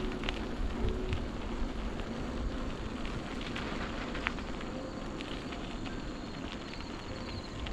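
Bicycle tyres rolling over rough, broken pavement: a steady rushing noise with scattered crackles and clicks, and wind on the microphone.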